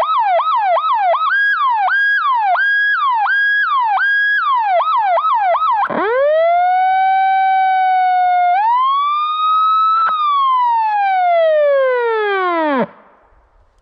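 Federal Signal PA-15A electronic siren sounding loudly. It starts on a fast yelp of about four sweeps a second, changes to a slower sweep of about one and a half a second, and goes back to the fast yelp. About six seconds in it switches to a wail that rises, holds, and steps up higher. It then falls in one long glide, stopping abruptly near the end as the siren is switched off.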